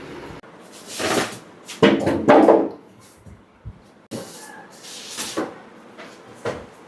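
A few short, irregular knocks and scrapes of things being handled and moved, the loudest about two seconds in, as a delivered home-theater box is being readied for unboxing.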